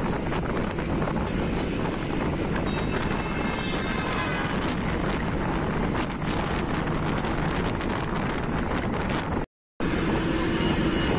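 Steady engine and road noise of a moving bus, heard from inside the cabin, with wind rushing at the open window. The sound cuts out for a split second near the end.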